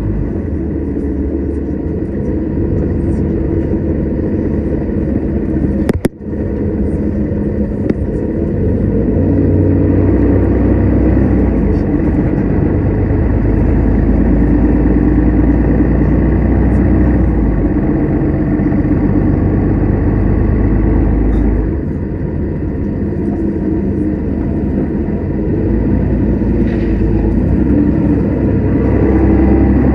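Mercedes-Benz Citaro city bus running along a street, heard from inside the cabin: a steady engine and road rumble. There is one sharp click about six seconds in. The rumble drops a little after twenty seconds and builds again near the end.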